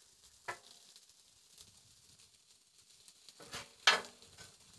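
Pork sausage patties and onions sizzling faintly on a Blackstone steel griddle. A metal spatula scrapes and clinks on the griddle top about half a second in, then again, louder, a little before the end.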